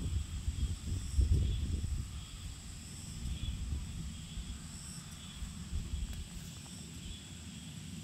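Forest ambience: a steady, faint, high-pitched chirring of insects, with a low rumble in the first two seconds that then eases off.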